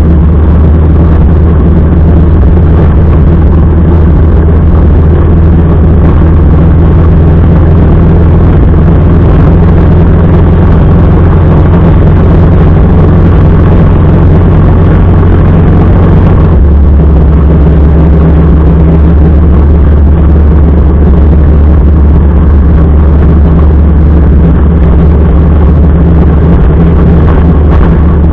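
Motorcycle engine running steadily at cruising speed. Its note drops slightly about sixteen seconds in and then holds steady again.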